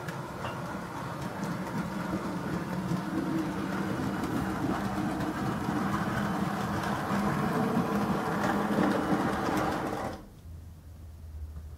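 Model railway train, a small steam-locomotive model hauling loaded wagons, running along the track: electric motor whirring and wheels clicking over the rails, growing a little louder. The running stops abruptly about ten seconds in, leaving a low steady hum.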